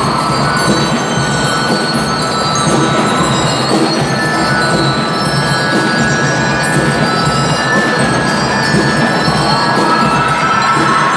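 Municipal band playing music, with long held notes over a steady, dense accompaniment.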